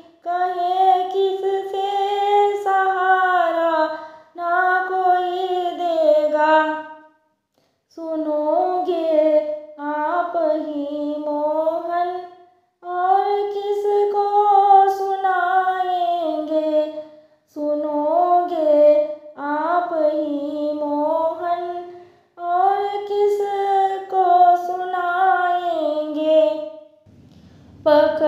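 A woman singing a Hindi Krishna bhajan unaccompanied, in sung phrases of a few seconds each with short breaks for breath between them.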